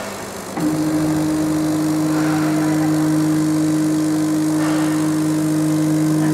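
CO2 laser cutting machine running a cut, giving a steady low two-note hum that starts suddenly about half a second in and holds level until the end.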